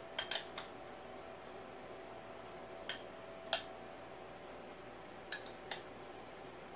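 A metal utensil clinking against a ceramic bowl while scooping cooked chicken strips: a handful of short, light clinks, three close together at the start, then a couple more in the middle and two near the end.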